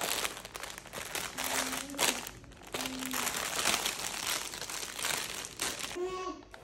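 Thin clear plastic packaging crinkling and rustling in irregular handfuls as bagged Santa hats are handled and pulled out. Near the end, an infant babbles briefly.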